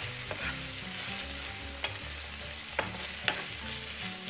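Sliced onion, garlic and flaked salt cod sizzling in a non-stick frying pan while a spatula stirs them, with a few sharp clicks of the spatula against the pan.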